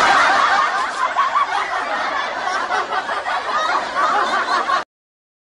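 A crowd of many people laughing together, like an audience laugh track, which cuts off abruptly near the end.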